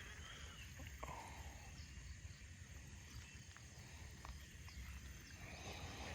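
Faint outdoor ambience: a steady low rumble with a thin steady high whine, and a few faint clicks.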